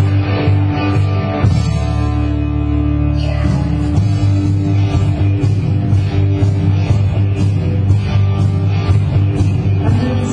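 Loud rock music with guitar, bass and drums, a cymbal keeping a steady beat over sustained bass notes.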